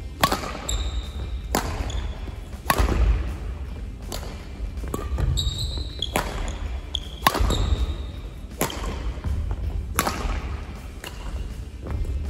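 Badminton rally: sharp racket hits on the shuttlecock about every one and a half seconds, with shoe squeaks on the court floor and footfalls between the strokes.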